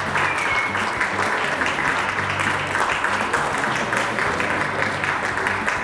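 Audience applauding steadily, with background music and its low bass notes running underneath.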